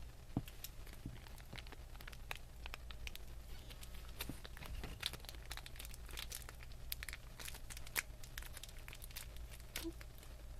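Thin plastic packaging crinkling and tearing in irregular crackles as small toy figures are unwrapped by hand.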